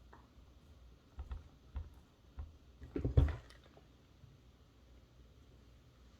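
A few light clicks and knocks of objects being handled, with a louder clatter of knocks about three seconds in.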